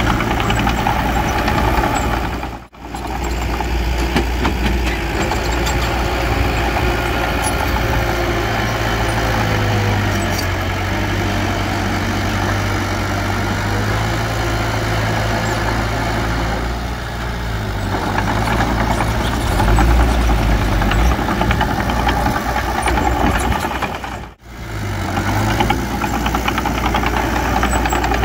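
Diesel engine of a small bulldozer running steadily at working revs, with a deep rumble. The sound cuts out for a moment twice, about three seconds in and near the end.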